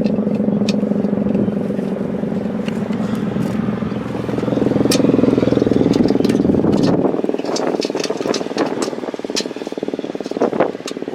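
Federal Signal 3T22 siren sounding its multi-tone chord, then winding down from about seven seconds in and fading.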